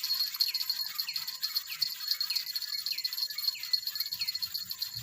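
Outdoor insect chorus, a steady high pulsing buzz, with a bird repeating a short falling whistle about every half second.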